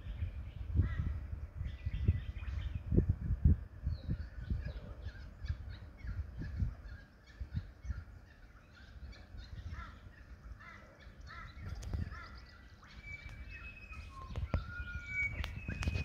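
A mix of wild bird calls and songs from riverside forest, with a few clear whistled notes near the end. Gusts of wind buffet the microphone, loudest in the first few seconds.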